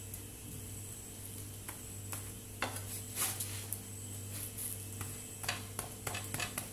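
Spatula scraping and tapping on a nonstick dosa tawa in a string of short strokes as a masala dosa is folded and pressed flat, over a faint sizzle and a low steady hum.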